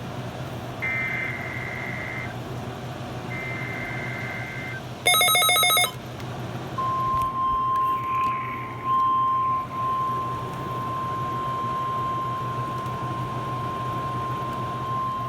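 NOAA Weather Radio Required Weekly Test over a radio receiver's speaker. The last two SAME header bursts sound as screeching two-tone digital data, each about a second and a half long. About five seconds in a short, loud buzzy beep sounds, and a couple of seconds later a steady single-pitch alert tone near 1 kHz begins and holds.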